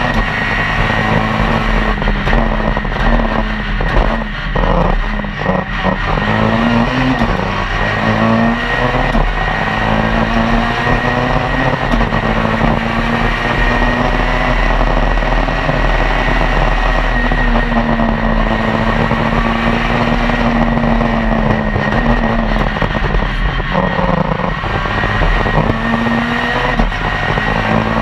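Citroën C2 R2 Max rally car's 1.6-litre four-cylinder engine at hard throttle, heard from inside the cabin: the revs climb and drop again and again through the gear changes. About four to six seconds in, the note breaks up briefly as the driver comes off the throttle.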